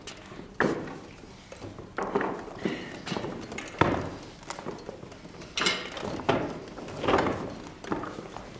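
Irregular knocks and thuds, about half a dozen sharp hits a second or so apart, from people moving at a laid dinner table: hands, tableware and chairs striking the table and stage floor.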